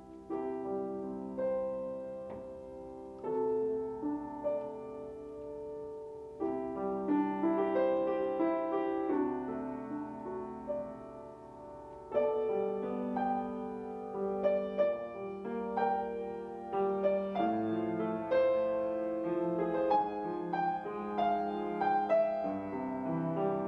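Solo grand piano playing an instrumental prelude: a melody over held chords, each note struck and left ringing.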